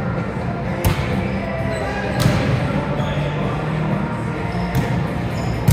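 A volleyball being hit: a few sharp smacks, the clearest about one and two seconds in and another near the end, echoing in a large gymnasium over players' voices.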